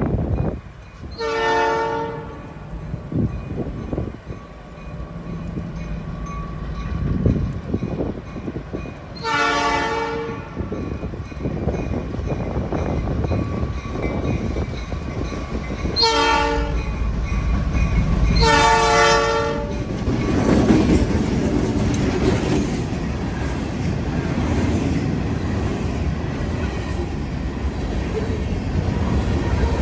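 Diesel locomotive horn sounding the grade-crossing signal of two long blasts, one short and one long, followed by the train rolling past with rumbling and wheel clatter on the rails.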